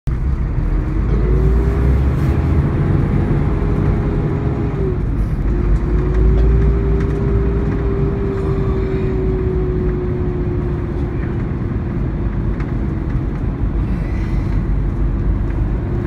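Volvo B13RT tri-axle coach under way, heard on board: a steady low diesel rumble with a vacuum-cleaner-like whine, the 'hoover' sound. The whine drops out briefly about five seconds in, returns and slowly falls in pitch, then rises again near the end.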